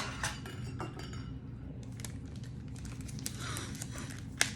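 Light clicks and clinks of a Pokémon Poké Ball tin and its contents being handled, with one sharper click near the end.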